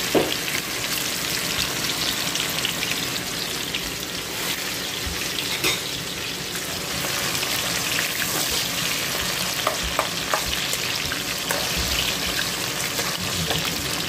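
Sliced onions sizzling steadily in hot oil in a wok as they are fried. A metal spoon stirs them, with a few sharp taps against the pan.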